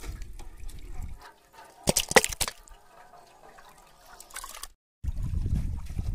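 Water splashing and dripping as pieces of raw duck meat are rinsed by hand in a steel bowl, with a short cluster of sharp splashes and clatter about two seconds in. A low rumble sits under the start and the end.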